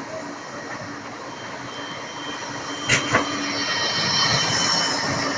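Bombardier Flexity 2 tram approaching and passing close by on street track, its running noise growing louder from about halfway, with a faint high whine and two sharp clicks about three seconds in.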